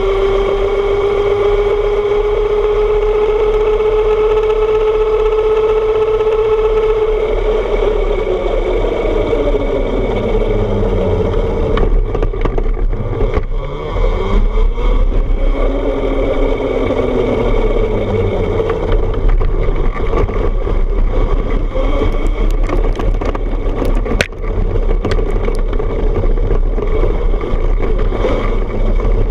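Electric trike's motor whining under way, its pitch climbing a little, then sliding down and back up several times as the trike slows and speeds up, over a steady hiss of riding noise. From about 22 seconds in, sharp clicks and knocks come through as it runs onto a rough dirt path.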